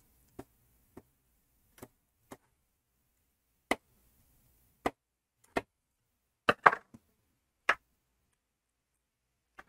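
Scattered sharp metal clicks and taps, about ten of them at uneven spacing and clustered in the middle: a screwdriver working the blade retaining screw out of a Bosch 1581VS jigsaw's blade clamp, with the saw being handled.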